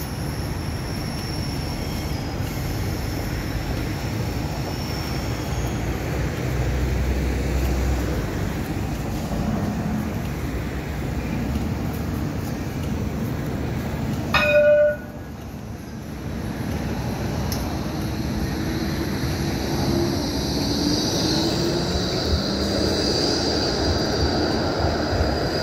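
Melbourne E2-class electric tram at a stop: a steady hum of the tram under street noise, with a brief loud ringing tone about halfway through. In the latter part the tram's electric drive whines, with a tone that rises in pitch as the tram moves.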